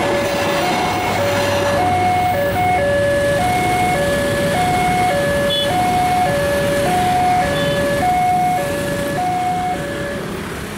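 Alkmaar-type railway level-crossing warning alarm sounding its two-note electronic signal, a lower and a higher tone taking turns about every 0.7 s, which stops near the end. At first the passing train rumbles underneath it, then motorcycle engines.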